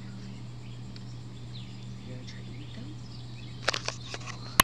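Outdoor ambience: a steady low hum with faint, scattered bird chirps, then a quick run of sharp clicks near the end.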